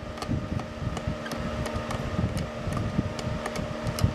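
Faint small clicks and rubbing as screws are turned finger-tight into a Lionel model train tender's plastic body. A steady hum runs underneath.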